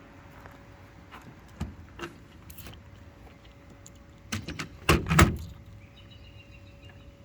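Handling noise from an AR-15 pistol: a few light clicks, then a quick cluster of louder metallic clacks and knocks about four to five seconds in, over a faint steady hum.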